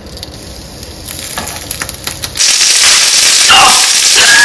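Eggplant slices frying in hot oil in a nonstick frying pan. A few light clicks of metal tongs come first, then about two and a half seconds in a loud sizzle starts suddenly and keeps on.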